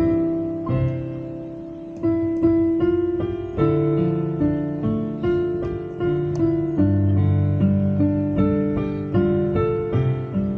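Casio Celviano digital piano played by hand: slow chords under a melody line, each note struck and left to ring and fade. A held chord dies away in the first two seconds before the next phrase comes in.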